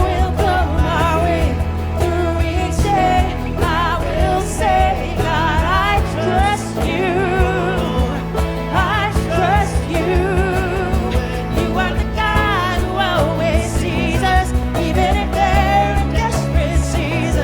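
Worship song with a lead vocal: a singer's voice with vibrato over steady band accompaniment with sustained bass notes.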